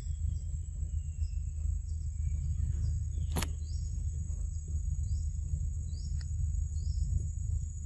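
Tropical forest ambience: a steady high insect drone with short chirps repeating about every three-quarters of a second, over a steady low rumble. A long faint falling whistle in the first two seconds, and a single sharp click about three and a half seconds in.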